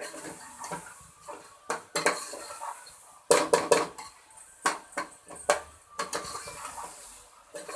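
Metal spoon clanking and scraping against a cooking pot as keema is stirred, in irregular clatters with a quick run of knocks about halfway through.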